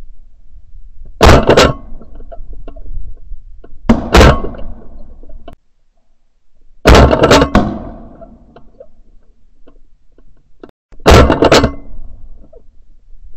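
Four shotgun shots a few seconds apart, each very loud and clipped with a short trailing echo. They are recorded from a ShotKam camera mounted on the gun's barrel.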